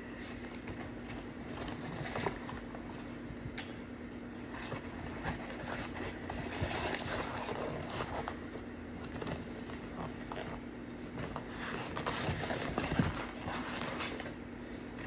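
Takeout food packaging being handled: paper wrappers and bags rustling and crinkling in scattered small scrapes and crackles, over a low steady hum.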